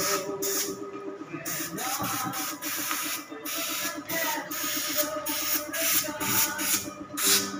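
Liquid glugging and splashing in uneven spurts as it is poured from a plastic jerry can into a plastic basin.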